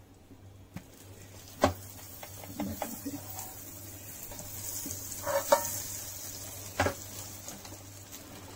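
Butter melting and sizzling in a hot non-stick pan as it is spread around with a spoon; the sizzle builds after about a second. Two sharp knocks of metal on the pan stand out, about a second and a half in and again near the end.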